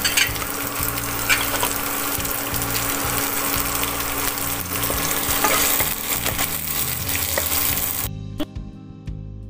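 Chopped onion, capsicum and garlic sizzling in hot oil in a nonstick wok, with a few clicks of a spatula stirring them. The sizzle cuts off suddenly near the end, leaving soft background music.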